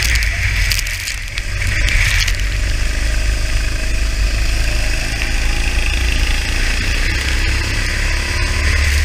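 Go-kart engine running at speed, heard from the kart itself, under a heavy low rumble. The engine note climbs from about three seconds in as the kart accelerates.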